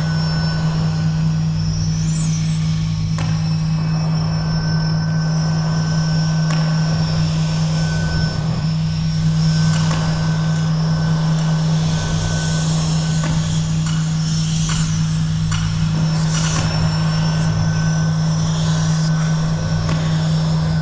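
Industrial-style noise soundtrack: a loud, steady low drone under a constant noisy wash, with faint high tones gliding up and down.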